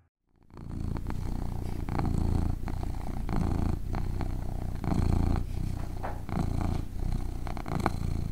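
A cat purring, a low rapid flutter that swells and eases with each breath, about once every second and a half. It starts about half a second in.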